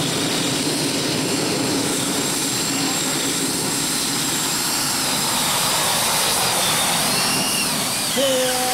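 Multi-turbine pulling tractor running its Isotov TV2 helicopter turboshaft engines at full power under load on the track: a steady jet-like rush with a thin high whine that wavers in pitch. Near the end a steadier, lower engine note takes over.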